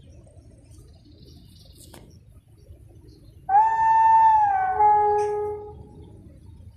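Locomotive horn sounding two notes: a high steady note held for just over a second, then a lower note for about a second before it fades.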